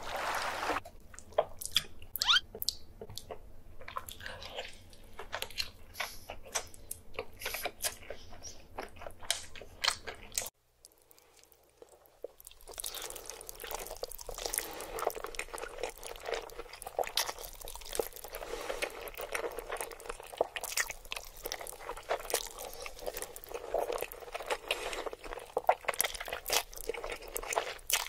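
Close-miked eating sounds: crunchy bites and chewing for about the first ten seconds, a brief near-silent gap, then continuous wet chewing and slurping of black bean noodles (jjajangmyeon).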